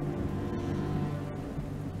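Slow instrumental music with held low notes and no singing.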